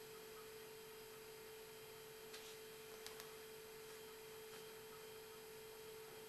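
Near silence with a faint, steady hum on one pitch and a couple of faint ticks.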